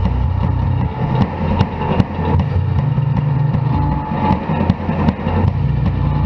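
Live rock band playing loud: electric guitar and bass hold a heavy, droning low rumble while the drums strike about twice a second.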